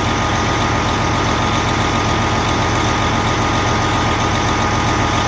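Scania V8 diesel engine with a mechanical injection pump idling steadily on its first run after being rebuilt and refitted, with oil pressure up at about 4 bar.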